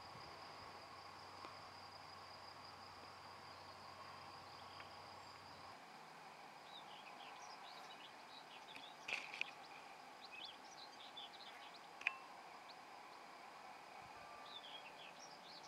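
Faint meadow ambience: a steady high-pitched insect trill, with small birds chirping repeatedly from about six seconds in.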